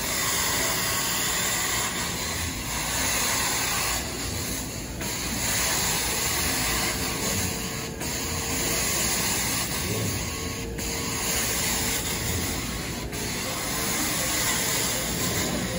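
Carpet-cleaning hot-water extraction wand working over carpet: a steady rushing hiss of spray and vacuum suction that dips briefly every few seconds.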